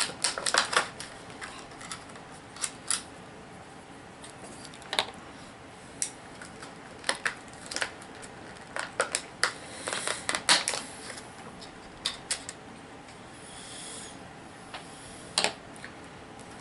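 Plastic HeroClix miniatures and booster packaging being handled: scattered sharp clicks and taps, thickest about two thirds of the way through, with a brief soft rustle near the end.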